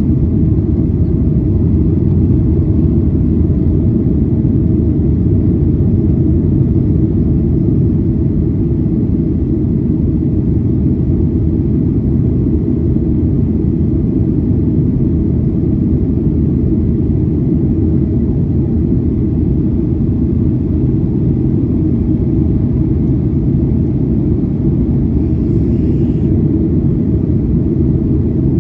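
Boeing 737-800 jet engines and airflow making a steady, loud low rumble that does not change in pitch.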